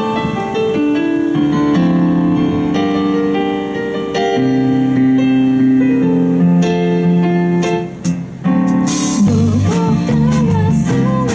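A live band's song intro: electric keyboard chords played alone at first. After a short break about eight seconds in, drums with a cymbal crash and bass join, and a wavering melody line comes in on top.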